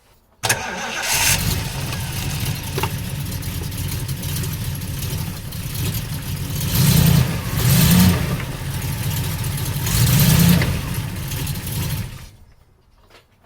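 Triumph Stag's V8 engine starting abruptly, then running steadily in gear with the car jacked up so the driven wheels can turn the speedometer drive. It grows louder three times in the second half and stops about a second before the end.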